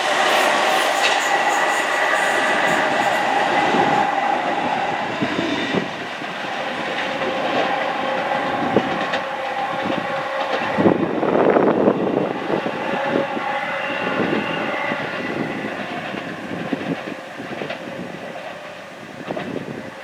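A passenger train running past on the tracks below. Its wheels clatter over rail joints and points in a run of sharp clicks, and the sound slowly fades towards the end as the train moves away.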